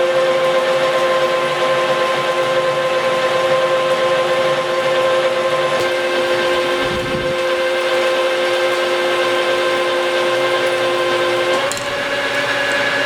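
Metal lathe taking a heavy, coarse-feed roughing cut on a shaft, about 25 thousandths per revolution. The cutting tool squeals with a steady high-pitched tone, almost like a chalkboard scratch. Near the end the pitch steps up slightly.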